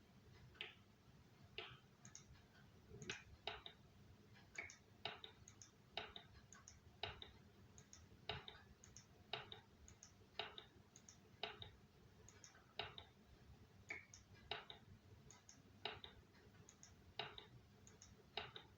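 Knuckles being cracked over and over: a long series of small, sharp cracks, often two close together, about one pair a second.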